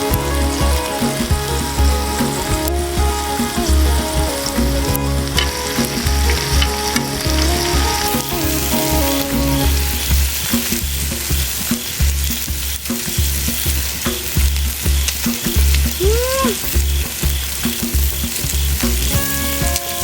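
Samgyeopsal (pork belly) sizzling and spitting in the fat on a hot grill pan.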